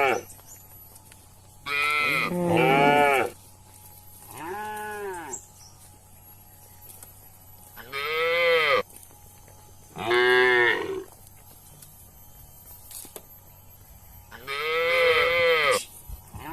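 Cattle mooing: about six separate calls, each roughly a second long, rising and then falling in pitch, with pauses of a few seconds between them.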